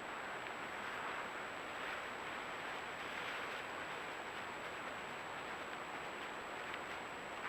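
Steady background hiss with a thin, constant high-pitched tone above it, and a faint tick or two near the end.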